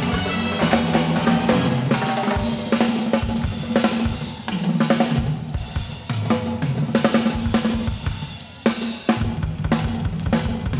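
Drum kit played live in a feature spot: dense fills and rolls across snare, toms and bass drum with cymbal crashes, and low ringing drum tones under the hits.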